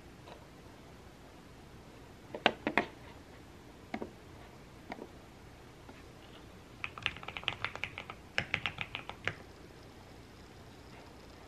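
Clicks of an Onn slim wireless mouse, a few spaced out, followed by a quick run of typing on a keyboard lasting about two seconds.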